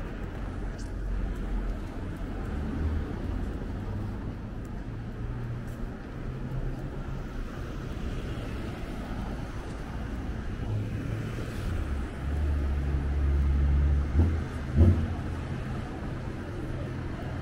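Street traffic: vehicle engines running and passing with a low rumble that swells for a couple of seconds past the middle as a vehicle goes by close, followed by two short thumps.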